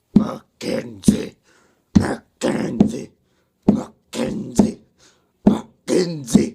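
A person making weird vocal noises: short, sharp-edged bursts from the voice in groups of three, the groups repeating about every two seconds.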